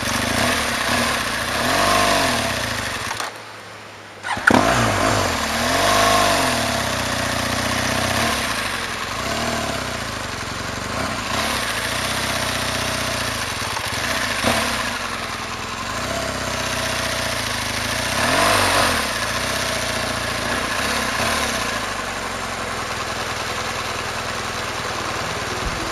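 BMW R1200GS boxer-twin engine under way, its pitch rising and falling with the throttle over a steady rush of noise. It drops away briefly about three seconds in, then comes back abruptly.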